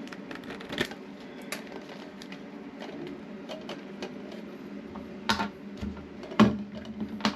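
Plastic toilet fill valve parts being handled: scattered light clicks and knocks, the loudest about six and a half seconds in, over a steady low hum.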